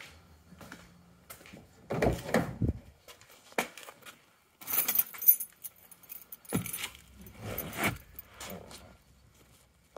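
Keys jangling in several short bursts, mixed with knocks and rustles of movement. There are deep thumps about two seconds in and again past the middle.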